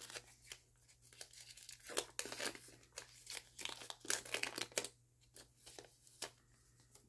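Foil wrapper of an NBA Hoops trading-card pack being torn open and crinkled by hand. The crackling tears are densest and loudest from about two to five seconds in, then give way to a few lighter crinkles as the cards come out.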